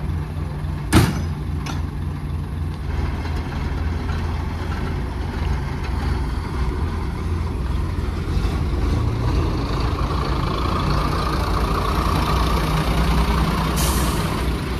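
Class 122 single-car diesel railcar's engine idling with a steady low rumble, and a sharp knock about a second in. In the last few seconds the running grows louder, and a brief hiss comes near the end.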